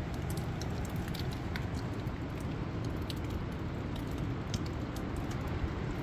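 Strong wind blowing on the microphone, a steady low rush, with scattered light ticks of raindrops throughout.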